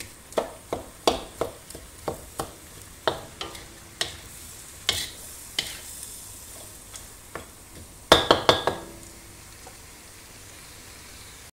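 Spatula scraping and knocking against a wok as boiled jackfruit pieces are stir-fried, over a steady sizzle. The strokes come about two or three a second at first, a quick run of louder knocks about eight seconds in, then only the sizzle.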